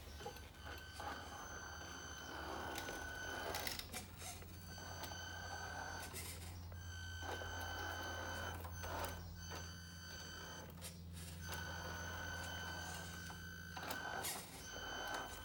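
Electronic reverse warning beeper from a radio-controlled Volvo FH16 truck's sound module, signalling that the truck is backing up. It sounds in long stretches broken by a few short pauses, over a low steady hum, with a few sharp clicks.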